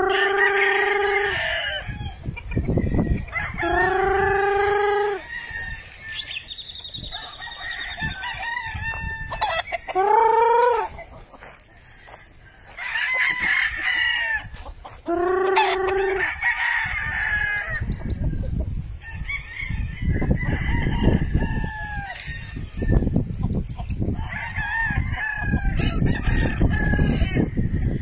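Gamefowl roosters crowing one after another, about a second per crow, with some crows near and others fainter and farther off. A low rumble runs under the later crows.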